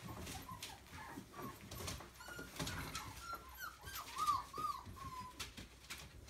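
Golden retriever puppy whimpering in a run of short, high squeaks and whines that rise and fall, several in a row, over light clicks and rattles of toys being pulled about.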